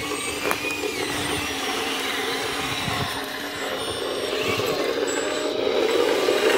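Electric motors and hydraulic pump of radio-controlled model construction machines, a Hidromek H4 500 excavator and a Liebherr LR 634 crawler dozer, whining steadily as they work, growing louder over the second half.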